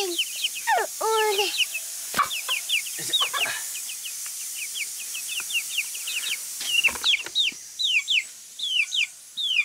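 Young chicks in a cardboard box peeping over and over: short, high, falling peeps, several a second, growing louder and more spaced in the last few seconds.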